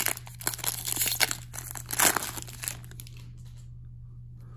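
Plastic-foil hockey card pack wrapper being torn open and crinkled in the hands. The crackling is strongest in the first half, loudest about two seconds in, and then dies down.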